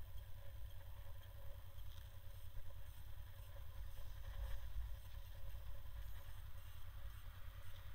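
Wind buffeting the microphone: an uneven low rumble that rises and falls, over a faint steady hum.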